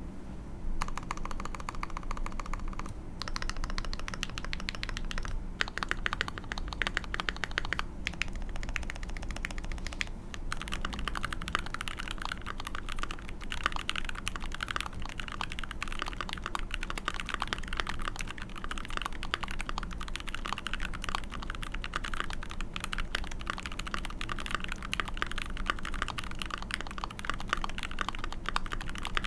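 Fast, continuous typing on a custom 65% mechanical keyboard with a brass plate, lubed Dinokeys Mint linear switches and GMK keycaps. The clicks start just under a second in, come in runs with short pauses during the first ten seconds, then go on without a break.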